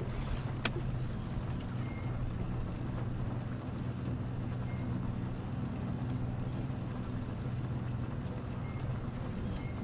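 Steady low hum of a bass boat's motor, with one sharp click about a second in.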